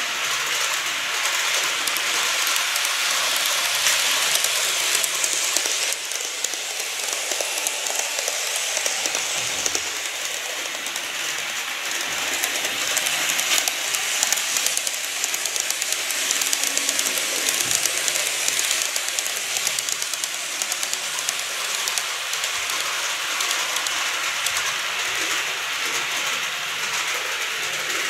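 N-scale model trains running on the layout's track: a steady rattle of small wheels with fine, rapid clicking over the rail joints.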